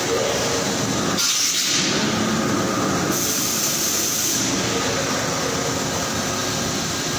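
Steady industrial machinery noise on an engine factory floor, with a short burst of hissing about a second in and another stretch of high hiss around three to four seconds in.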